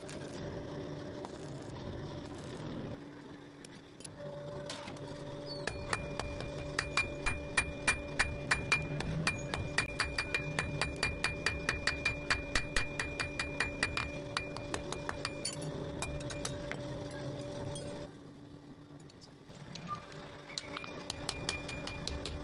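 Rapid, even hammer blows on hot steel at the anvil, about four strikes a second, each with a bright metallic ring. The blows run for about ten seconds, stop, and start again near the end, over a steady background hum or music.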